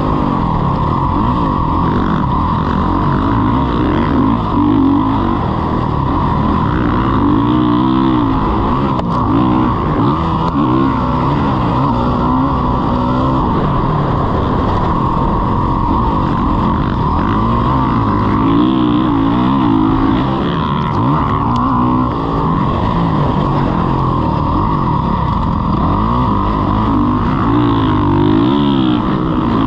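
Motocross dirt bike engine being ridden hard around a track, its pitch climbing and dropping again and again as the throttle is worked through the turns and jumps.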